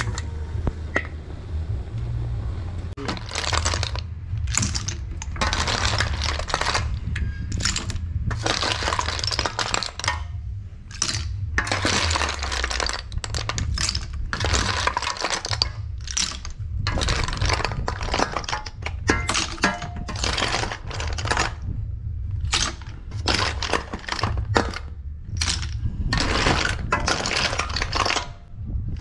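Cooked snail shells clattering against each other and the aluminium basin as they are stirred and scooped with a metal spoon, in quick irregular bursts over a steady low rumble.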